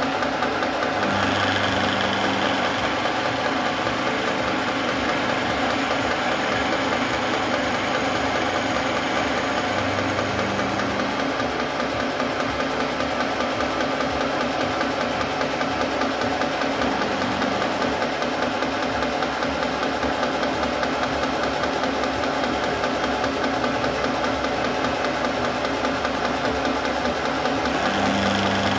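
Vertical milling machine running, its end mill side-cutting the edge of a metal workpiece held in a vise: a steady, loud machining noise with a deeper hum that swells a few times.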